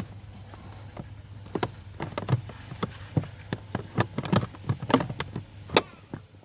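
Plastic dashboard glove compartment being refitted: a series of irregular sharp clicks and knocks as it is pushed and snapped back into place.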